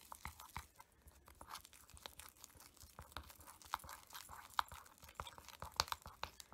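Thick cornstarch paste being stirred in a small bowl: faint, irregular clicks and scrapes of the stirring with a soft crunch from the stiff paste.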